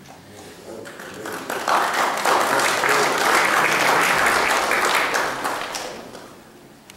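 Congregation applauding at the end of a song. The applause swells about a second in and dies away near the end.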